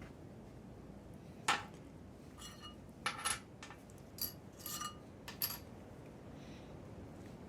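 Small metal parts clinking against each other about six times, some ringing briefly: tapered wheel bearings and their races being handled for fitting into the hub.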